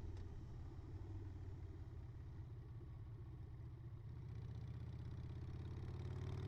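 Harley-Davidson Sportster V-twin with shotgun exhaust pipes running under way, a steady low note whose pitch and loudness rise over the last two seconds or so as the revs climb.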